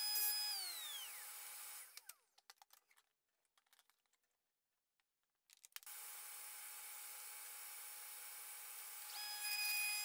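Table saw fitted with a dado stack, switched off after a cut and winding down, its whine falling in pitch and fading out within the first second and a half. A few light clicks and taps follow, and about nine seconds in a steady whine starts up again.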